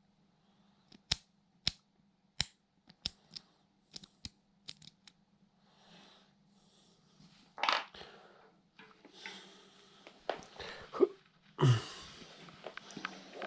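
Small bicycle-hub parts being handled on a bench: a series of sharp clicks about every half second, then rustling and scraping with a couple of louder knocks near the end.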